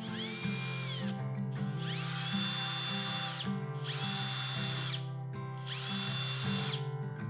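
A power drill running in four short spells, each speeding up to a steady high whine and winding down, over background acoustic guitar music.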